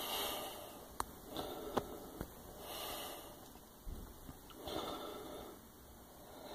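A person breathing close to the microphone: four slow, soft breaths about every one and a half to two seconds, with a few faint clicks in between.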